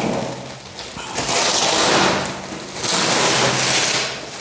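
Thin plastic bag and wrap crinkling and rustling as it is handled, in three long stretches of crackly rustle.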